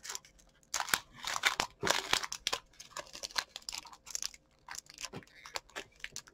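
Foil Pokémon TCG booster pack wrapper crinkling and being torn open by hand, in a run of irregular crackling rustles.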